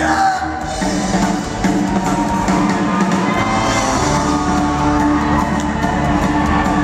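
Live band playing amplified rock music with a drum kit and guitars.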